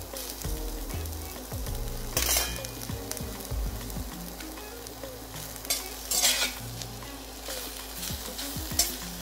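Chopped bell peppers sizzling in hot oil in a pan as a spatula stirs them. The frying hiss is steady, with a few sharper spatula scrapes against the pan, the loudest about two seconds in and about six seconds in.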